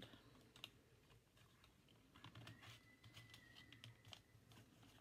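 Near silence with faint scattered clicks and taps: white cardstock strips being handled and pressed together by hand as a glued frame corner is joined.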